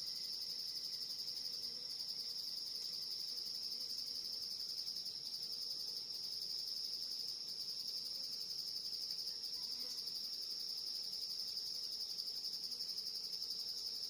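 Steady, high-pitched drone of an insect chorus in forest, unbroken and even in level, with no bird calls standing out.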